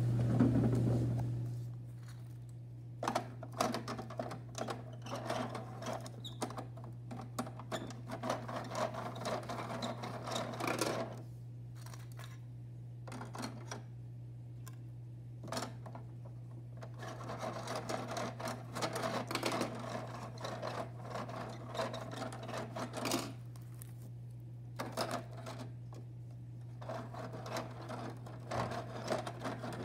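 Rapid plastic clicking and rattling from the rear loading mechanism of a Bruder toy garbage truck being worked by hand, in several bursts of a few seconds with quieter pauses between.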